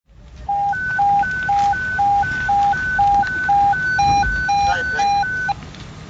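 Electronic hi-lo alert tone: two pure beeps, one low and one high, alternating about twice a second and cutting off abruptly about five and a half seconds in, with a few higher beeps layered in near the end.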